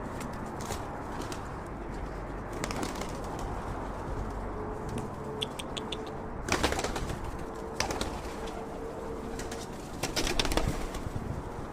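Pigeons cooing, with two loud bursts of wing flapping, one midway and one near the end.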